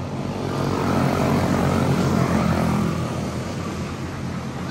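Quarter midget race cars' small single-cylinder Briggs & Stratton Animal engines buzzing at racing speed, growing louder about a second in as the cars come by and easing off near the end.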